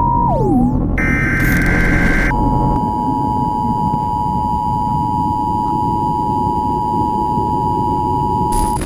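Emergency-broadcast-style electronic tone with static. Just after the start a steady beep swoops down in pitch and breaks off. Bursts of static follow, then a steady two-note alert tone holds over hiss until a final burst of static near the end.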